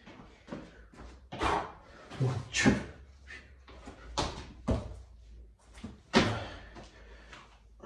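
Hands and feet thudding and slapping on a tiled floor during burpees: a run of irregular thumps as the body drops to the floor, jumps the legs in and out and pushes up.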